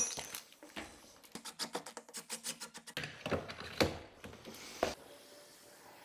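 A quick rattle of small clicks for about two seconds, then three louder knocks spaced out after it.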